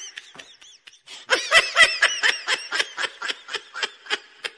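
A person laughing hard in quick, rhythmic bursts of about five a second. The laughter is faint at first and grows loud about a second in.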